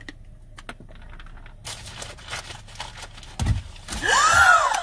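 Light taps and clicks from an ostrich pecking at a hand through a car window, and a low thump a little after three seconds. Near the end comes a loud, short shriek from the person, rising then falling in pitch.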